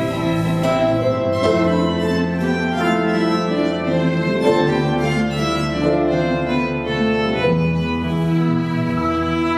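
A violin plays a slow melody in long held notes over grand piano, double bass and acoustic guitar accompaniment.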